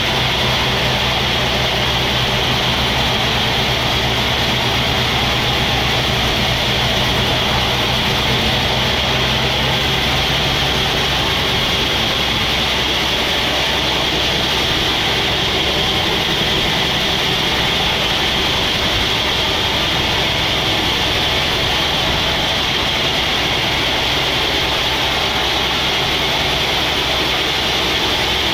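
Sawmill machinery running steadily with a constant high whine. A low hum underneath drops away about eleven seconds in.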